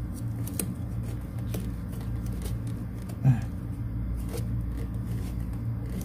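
Small clicks and rustles of a wire clip being refitted onto a refrigerator compressor's terminal, over a steady low hum. One short, louder sound comes about three seconds in.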